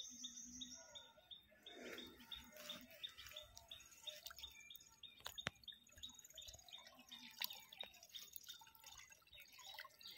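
Near silence, with faint small-bird chirps repeating several times a second and a couple of sharp clicks.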